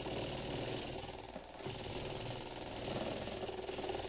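Rapid, steady mechanical chatter of a stack of magnets knocking up and down against a pulsed Rodin coil, driven by the coil's pulses at a few tens of beats a second: the 'piston effect'.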